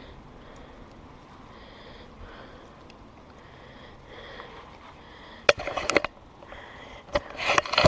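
Loud snuffling sniffs and rubbing right against the camera microphone, in two bursts: about five and a half seconds in, and again near the end.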